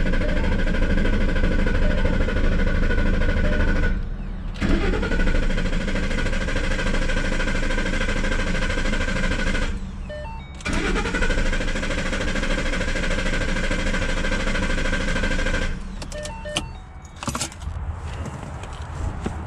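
2014 Ford Mustang GT's 5.0 L V8 being cranked over by the starter without catching, three long cranks of about four to five seconds each, each one rising in pitch as it spins up. The fuel pump fuse is pulled, so the engine cannot start; the cranking bleeds fuel out of the fuel rail. A few sharp clicks come near the end.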